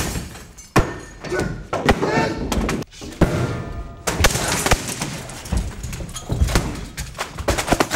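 A staged fist fight: a rapid series of sharp thuds and slams as bodies hit a desk and the floor, with scuffling and short voiced sounds in between.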